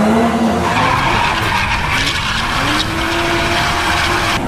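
Added sound effect of a car engine revving with skidding tyres. The engine's pitch sags, climbs to a peak about three seconds in, and drops away near the end, under a hiss of skidding that is heaviest early on.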